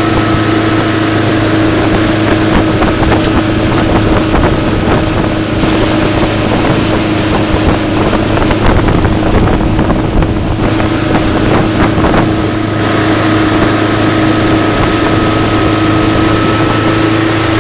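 Tow boat's engine running steadily at towing speed, a constant drone under a rush of wind on the microphone.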